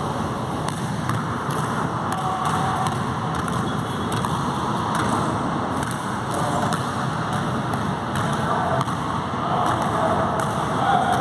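Steady rushing noise with faint basketball bounces on a hard court floor.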